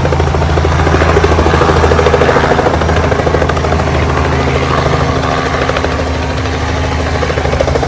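Helicopter close by, its rotor beating in a fast, steady chop over a low engine drone, loud throughout.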